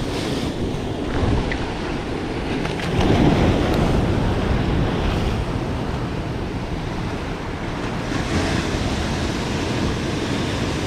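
Ocean surf washing and breaking against the boulders of a rock jetty, swelling louder about three seconds in.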